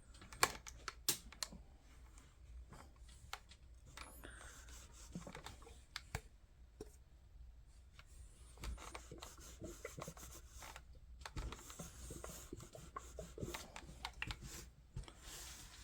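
Faint handling noises: scattered sharp clicks and taps, the sharpest about half a second to a second and a half in, with light rubbing and scratching of things being moved about.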